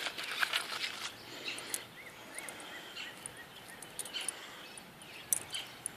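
Small items from a survival kit being handled: scattered light clicks and rustles, with a few faint high chirps about two seconds in.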